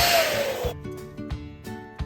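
Electric balloon pump blowing air, a loud hiss with a steady motor whine that sags in pitch and stops under a second in. Background music with a steady beat runs underneath and carries on after it.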